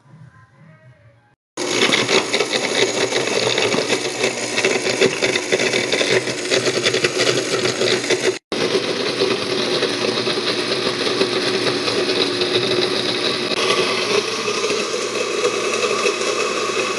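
Electric countertop blender running hard, crushing ice with lemon juice and sugar into frozen lemonade. It starts abruptly about a second and a half in and cuts out for an instant about halfway.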